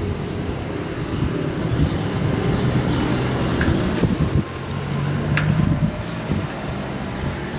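A motor vehicle's engine running on the street, a steady low rumble with wind noise on the microphone. A few light clicks come around the middle.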